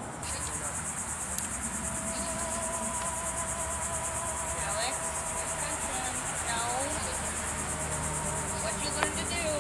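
Chorus of insects: a steady, high-pitched, finely pulsing buzz.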